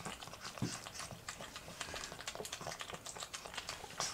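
Pug puppy licking yogurt off a metal spoon: rapid, irregular licking and lip-smacking clicks, several a second.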